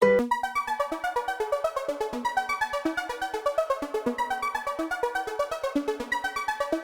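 Electronic synthesizer music with rapid, evenly pulsing notes, about eight a second, starting abruptly after a brief silence.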